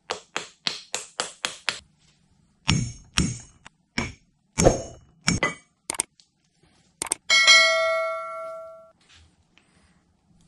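A small hammer tapping the rear bearing carrier onto a vintage GE three-phase motor's rotor shaft: about eight quick metallic taps, then a few slower, heavier ones. Near the end a couple of clicks and a bell-like ding that rings on for over a second.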